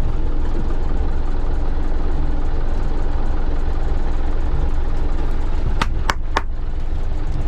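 Boat engine running at slow speed, a steady low rumble. Three sharp clicks come close together near the end.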